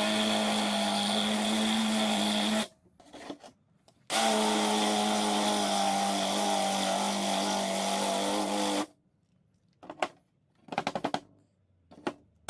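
Electric drill running steadily with a twist bit boring through a steel plate, in two runs: the first stops under three seconds in, the second runs from about four to nine seconds. A few faint clicks and rattles follow near the end.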